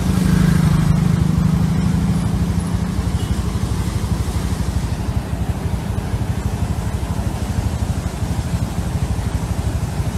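Muddy floodwater rushing over a concrete weir: a loud, steady torrent.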